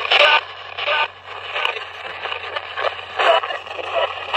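Spirit box sweeping through radio stations: choppy bursts of static and clipped broadcast fragments a few times a second, over a steady low hum.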